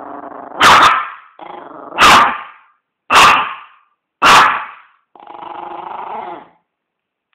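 Agitated dog growling and barking: four loud barks about a second apart, with growls between them and a longer growl near the end.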